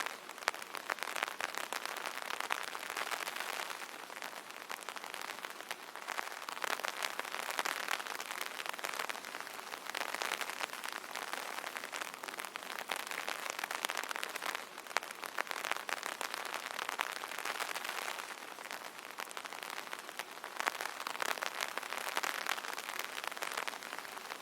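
Rain pattering on an umbrella canopy: a dense, steady patter of many fine drop ticks, swelling and easing every few seconds.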